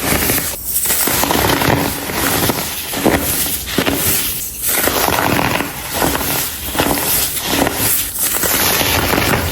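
Baking soda chunks crumbling into crunchy powder: dense crackling crunches, one after another, with brief dips between them.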